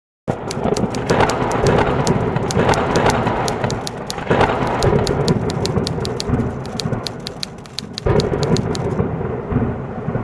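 Lightning sound effect: dense sharp electric crackling over a low thunder rumble, swelling three times and cutting off suddenly near the end.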